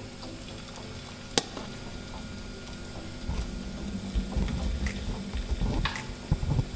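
Zucchini-and-egg batter sizzling in hot olive oil in a nonstick frying pan as a spoon spreads it. A single sharp tap comes about a second and a half in, and from about three seconds on the spoon adds uneven scraping and small taps.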